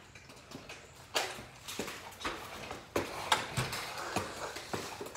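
Irregular knocks and taps from children playing with plastic toys on a concrete driveway, about a dozen at uneven spacing.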